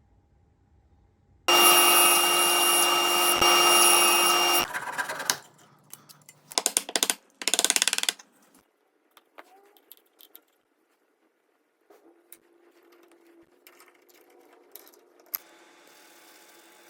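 A power tool's motor runs at a steady, high-pitched speed for about three seconds, then stops. A couple of seconds later it runs again in two short groups of fluttering bursts.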